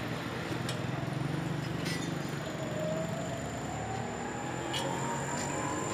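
A motor running with a steady low hum, and a whine that rises slowly in pitch through the second half; a few light clicks are scattered over it.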